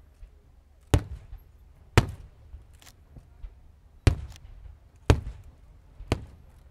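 Fireworks going off: five loud bangs, the first two and the last three about a second apart with a longer gap between them, each trailing off briefly.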